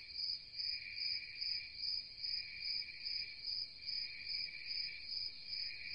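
Insects chirping in a pulsing chorus, about three chirps a second, over a steadier, lower insect trill.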